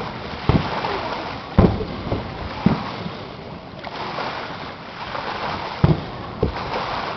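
Fireworks aerial shells bursting overhead: a string of deep booms, four in the first three seconds and two more near the end, over a steady rushing background noise.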